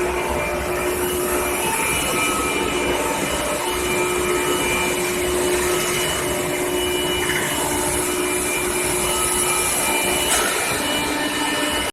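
Steady industrial machinery noise from a pipe heat-treatment furnace line, a constant rumble with several steady humming tones over it.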